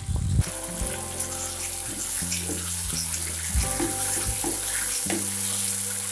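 Thick tamarind gojju bubbling and sizzling in hot oil in a pan, with the scrape of a wooden spatula stirring it now and then; the sauce is being boiled down until the oil separates out.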